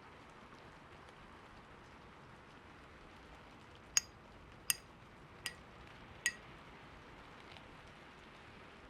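Four light clinks, each ringing briefly, about three-quarters of a second apart, over a faint steady hiss.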